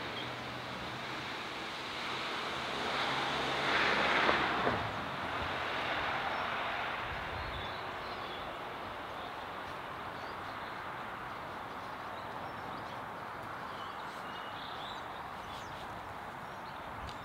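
Outdoor ambience with a steady hiss. A louder rush of noise swells and fades about four seconds in, and a few faint high chirps come near the end.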